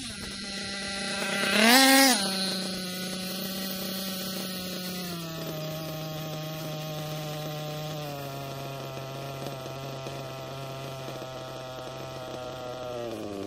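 Kyosho KE25 two-stroke nitro engine in an RC truggy gives a short loud rev about two seconds in, then idles steadily. The idle slowly settles lower as the engine rests between break-in passes.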